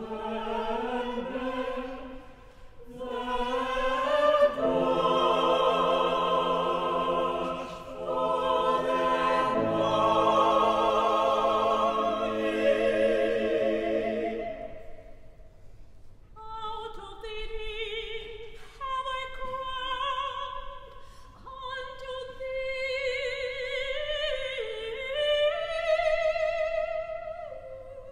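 Mixed chamber choir singing sustained, slow chords with vibrato. About halfway through the full choir drops away and a single female voice carries the melody.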